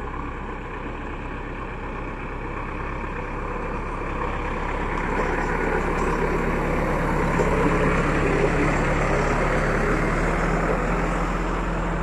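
JCB 3DX backhoe loader's diesel engine running steadily as the machine drives slowly through shallow water, getting louder about a third of the way in as it passes close by, over the rush of water pouring across the weir.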